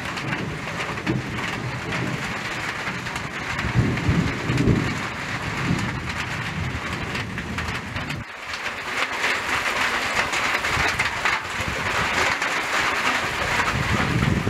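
Rain and strong wind lashing forest trees in a thunderstorm, a dense steady hiss. Deep rumbles swell in the first half, loudest about four to five seconds in, then fade after about eight seconds, leaving the hiss of rain and wind.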